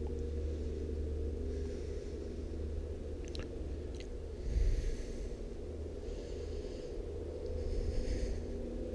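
A person breathing close to the microphone, four soft breaths a second or two apart, over a steady low hum. A few light clicks come about three to four seconds in as a small greased seal is handled.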